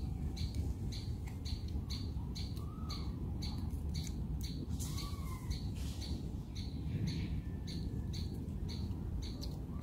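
Animal calls: a high chirp repeating about twice a second, with a few faint short calls that rise and fall in pitch, over a steady low rumble.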